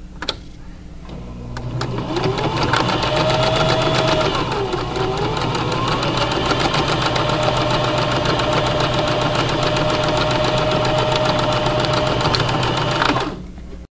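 Electric sewing machine stitching through flannel, the motor whirring under a fast, even clatter of needle strokes. It starts with a click, speeds up over the first couple of seconds, runs steadily and stops just before the end.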